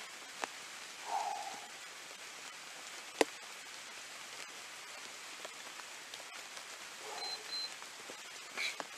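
Steady hiss of light rain, with a few scattered clicks and a sharp tap about three seconds in.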